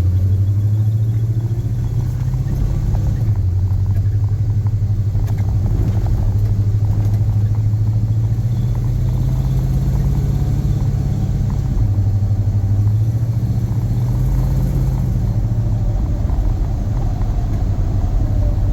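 Pickup truck driving, its engine and drivetrain droning low and changing pitch a couple of times, with a faint warbling squeal that climbs in pitch near the end. The squeak follows wheel speed, and the owner suspects worn original U-joints.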